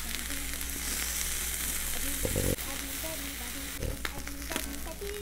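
Salmon sizzling steadily on a hot tabletop grill pan, with a few brief knocks as metal chopsticks turn and lift the fish.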